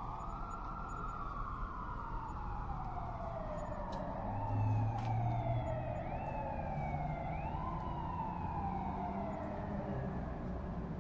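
Police car siren wailing: a long, slow falling glide, then two quick rises that each fall away again, over a low rumble that swells briefly about four seconds in.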